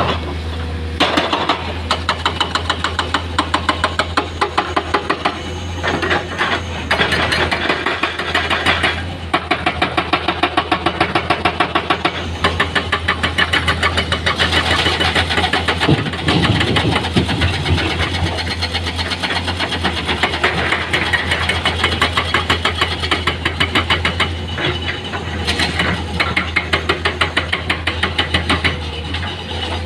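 Heavy construction machinery working: an engine running with a fast, regular clatter that comes in runs with short breaks.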